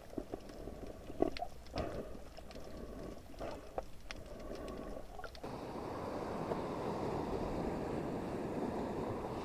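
Underwater sound with scattered clicks and knocks. About five and a half seconds in it switches abruptly to a steady rush of wind and sea above water.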